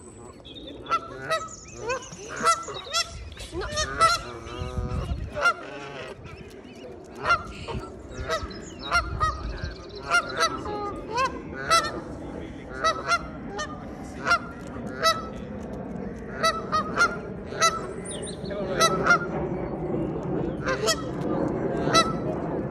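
Goose honking over and over in short, loud calls, about one or two a second: a parent goose's alarm at a dog close to its goslings.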